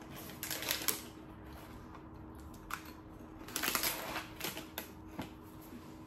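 Plastic inner bag of a cracker box crinkling in two bursts as it is handled and tucked back into the cardboard box, with a few short clicks between.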